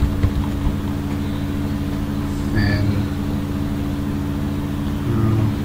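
Steady low hum made of several even tones, with a few computer keyboard keystrokes in the first second.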